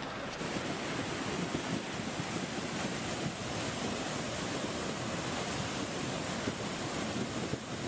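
Muddy floodwater of a swollen river rushing and churning past in fast, surging waves: a dense, steady rushing noise.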